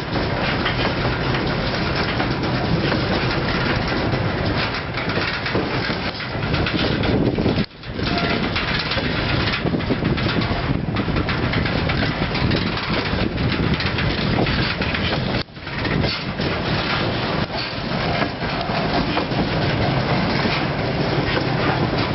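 Freight train of tank cars rolling past: a steady rumble and clatter of steel wheels on the rails. The sound cuts out briefly twice, about a third and two thirds of the way through.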